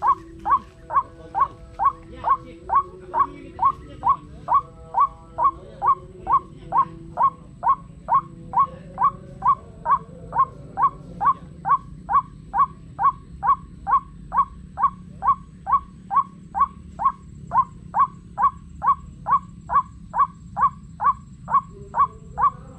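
White-breasted waterhen calls played as a lure from a speaker: a fast, even string of short loud notes, a little over two a second, repeated without a break.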